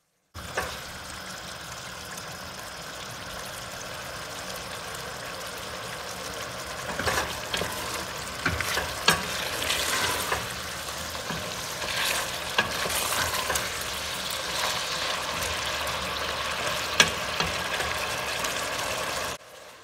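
Cubed beef frying in beef suet and its own juices in a wide, thick steel pot, a steady sizzle as the meat cooks down on low heat. From about a third of the way in, a wooden spoon stirs the meat, scraping and knocking against the pot, with one sharp knock near the end.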